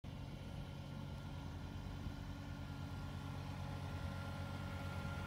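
John Deere compact tractor's diesel engine running steadily as it drives along towing a heavy log, with a faint thin whine above the engine note.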